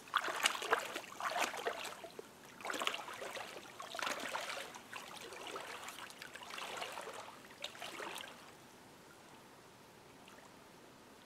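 A person wading through shallow lake water: a run of sloshing splashes about a second apart, stopping about eight seconds in.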